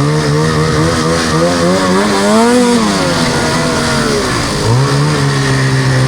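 2025 Ski-Doo Summit Edge 850 two-stroke snowmobile engine running under varying throttle as the sled is ridden. Its pitch wavers, rises to a peak about two and a half seconds in and falls away, dips briefly past the middle, then comes back up near the five-second mark.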